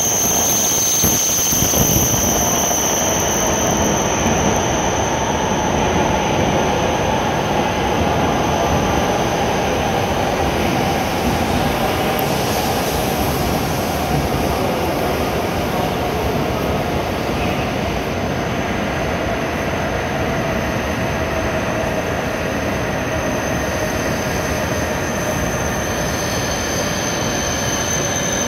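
E7 series Shinkansen train pulling in alongside the platform, a steady rolling rush with a thin high whine, growing gradually quieter as it slows to a stop.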